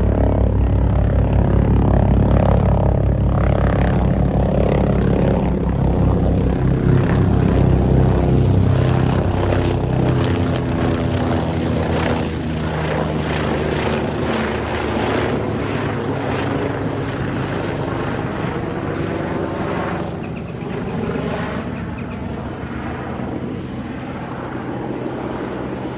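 Agusta Caweel CW-95 aircraft engine and propeller running steadily, a deep pitched hum with several tones. After about ten seconds the bass thins out and it runs a little quieter.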